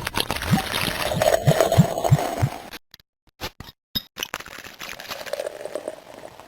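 Liquid pouring and glugging, with short low rising gulps, then a break with a few sharp clicks, then more pouring.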